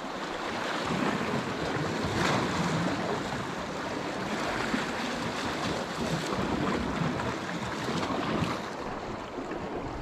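Sea surf washing in and drawing back, swelling and easing every few seconds, with wind buffeting the microphone.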